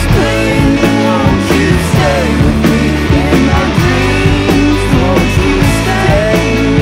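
Rock music: a loud, steady instrumental passage of a rock song, with no sung words.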